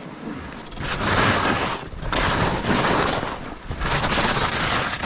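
Skis scraping and sliding across firm, chopped-up snow in three linked turns on a steep slope, each turn a rush of noise with a short lull between, mixed with wind on the microphone.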